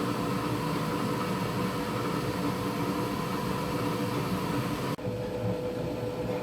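Wall-mounted gas boiler running at full burner power in heating mode, a steady rush with an even hum, free of any whistle or squeal at a gas pressure of 1.2 kPa. About five seconds in the sound changes abruptly, the hiss dropping away while the hum carries on.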